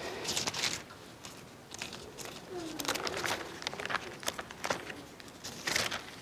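Thin pages of a Bible being turned and handled on a lectern: quiet, on-and-off paper rustles and small clicks.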